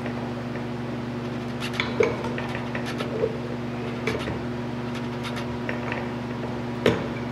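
Steel transmission gears, shaft and drive chain clinking and knocking against each other and the case as the gear shaft is lifted and worked into place, with a few sharp metal knocks, the loudest about two seconds and about seven seconds in. A steady electrical hum runs underneath.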